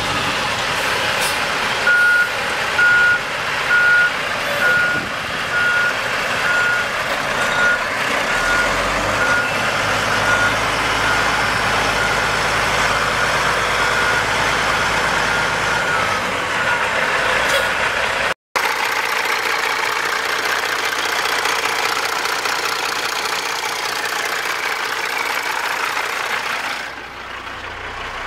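Heavy diesel truck engine, a Caterpillar C15 straight-six, running as the tractor maneuvers. From about two seconds in until about two-thirds through, a reverse-warning beeper sounds, a steady run of evenly spaced short beeps at one pitch. After that the engine runs on steadily.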